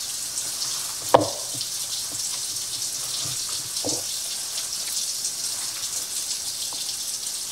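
Kitchen tap running steadily in the sink, a constant hiss, while hands knead and squish ground beef meatloaf mixture in a plastic bowl. A single sharp knock about a second in.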